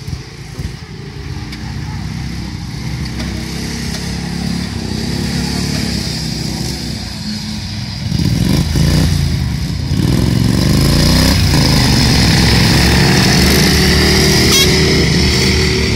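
Ride-on racing lawn mower engine running hard as the mower drives past close by, its pitch rising and falling with the throttle; it grows louder about halfway through and stays loud to the end.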